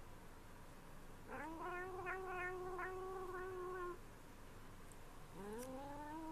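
Calico cat giving long, drawn-out meows: one of about two and a half seconds starting a second in, rising at first then holding a steady pitch, and a second one rising near the end.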